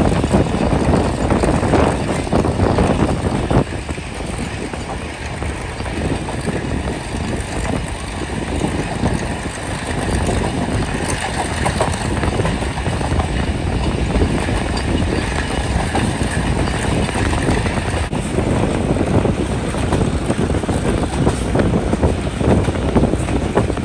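Passenger train running along the track: a steady rumble and rattle of wheels and carriage, dipping a little from about four seconds in and building again after about ten seconds, with wind buffeting the microphone.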